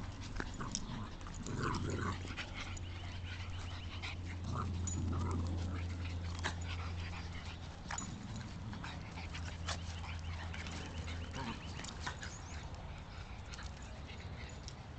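Small dogs play-fighting: a low growl runs through most of it, over short whines and yips and the scuffling of their wrestling.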